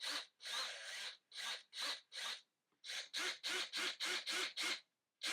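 Repeated back-and-forth scraping strokes of a hand tool worked against a hard surface. After a short pause about halfway through, the strokes resume faster, about four a second.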